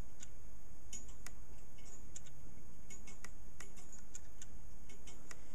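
Light, irregular metallic clicking from a homemade Hipps clock movement, its pawl and toothed wheel ticking as the free-running mechanism is pushed back and forth by the freely swinging pendulum.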